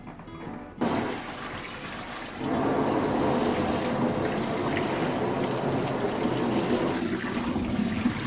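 Kitchen tap water running and splashing onto blanched chicken pieces in a stainless steel pan, with the water spilling over into a stainless steel sink. It starts suddenly about a second in and gets louder a second and a half later.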